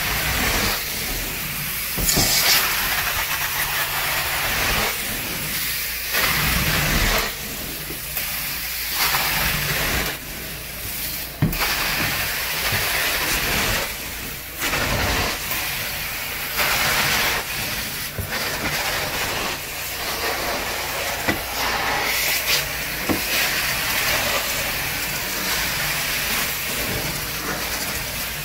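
Carpet extraction wand drawn back and forth over Berber carpet: a continuous hissing rush of spray and vacuum suction over a low machine hum, swelling and easing with each stroke every second or two.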